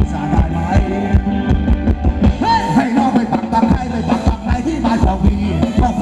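A live band plays Thai ramwong dance music through a PA, with a steady drum beat, heavy bass and a wavering melody line.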